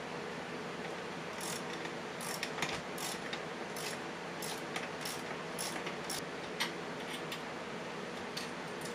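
Socket wrench ratchet clicking as bolts are run in, in irregular single clicks and quick pairs that start about a second and a half in, over a steady low hum.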